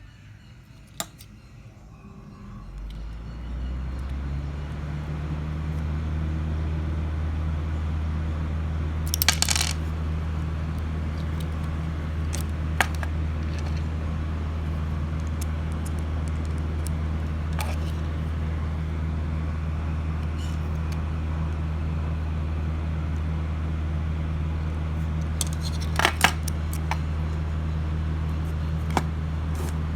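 A steady low hum that fades in over the first few seconds, with scattered sharp, small metallic clicks a few seconds apart, typical of a jeweller's screwdriver and tiny screws being handled on a sunglasses frame.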